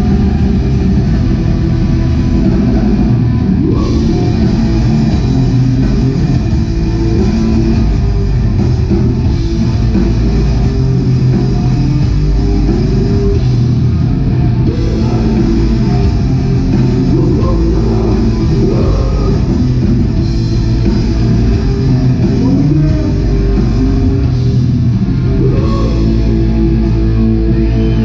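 Live black metal band playing loud: distorted electric guitars, bass and drum kit in a dense, bass-heavy wall of sound, heard from within the crowd.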